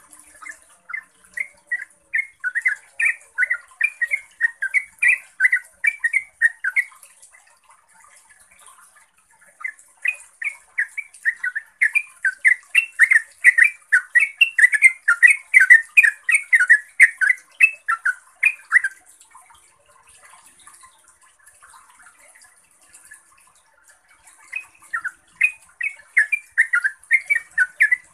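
Yellow-vented bulbul singing long runs of quick, repeated chattering notes, about two or three a second, in three bouts with short pauses of a few seconds between them.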